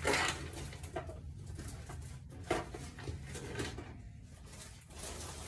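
Items being handled and set down on wire closet shelves: a few light knocks and rustles spread through, over a steady low hum.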